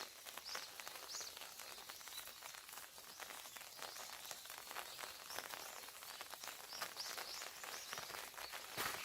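Faint outdoor ambience of footsteps, with small birds giving short, high chirps now and then.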